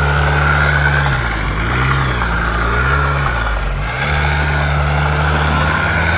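Arctic Cat ProCross F1100 snowmobile engine running as the sled is ridden, its pitch dipping and rising twice in the first few seconds, with a rapid clicking, several a second, of unknown cause. The sled is dragging its track, suspected from a seized brake caliper or a bad bearing.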